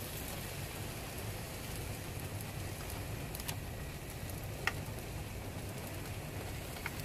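Frozen spinach pizza slice frying on baking paper in a non-stick pan over a gas hob burner: a steady sizzle and hiss, with three sharp little pops in the second half.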